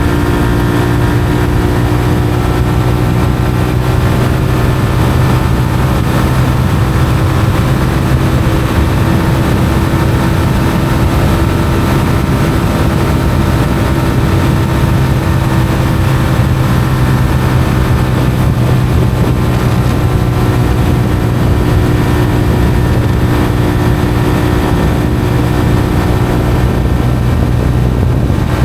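Honda CBR125R's single-cylinder four-stroke engine through a Mivv aftermarket exhaust, running at steady revs while the bike cruises.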